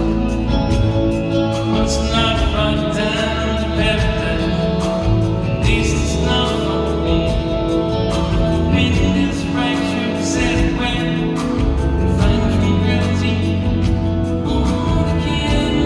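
Live band music: a man singing lead over electric guitar, bass and keyboards, with a steady beat.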